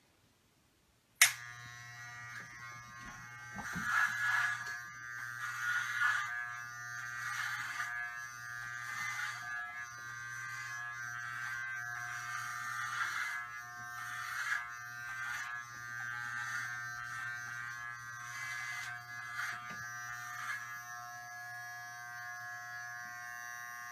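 Electric hair clippers switched on with a click about a second in, then buzzing steadily while cutting hair, the loudness swelling and dipping as they work.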